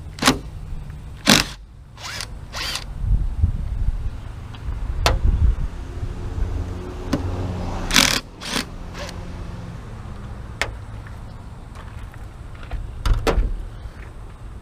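Tools and metal hardware being handled while fitting a mirror bracket to a Jeep: several sharp clicks and clunks at irregular intervals, with a low rumble of handling between them.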